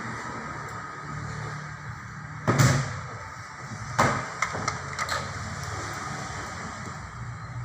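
A steady low hum, with a loud knock about two and a half seconds in, then a sharp click about four seconds in followed by a few smaller clicks.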